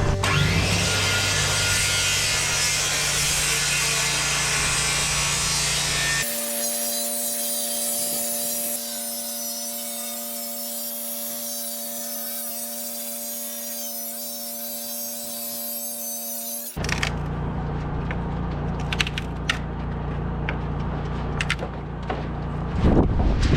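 Power tools working a wooden 2x8 board: a circular saw and an electric planer cutting and shaving the wood, heard in three separate passes. The sound changes abruptly about six seconds in to a steady whine, and again about seventeen seconds in to noisier cutting with sharp clicks.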